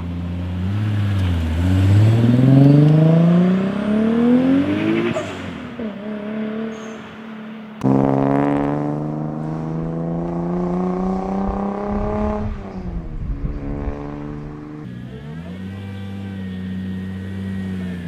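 Toyota 2JZ-GTE twin-turbo inline-six being revved: the pitch climbs steeply over the first few seconds, then after a sudden cut about eight seconds in it climbs again in a second run, and near the end it settles to a steady lower running note.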